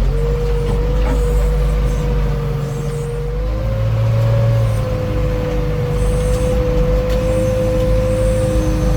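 Diesel backhoe engine running, with a steady high whine held over it for the whole stretch. The engine's low note shifts about three and a half seconds in.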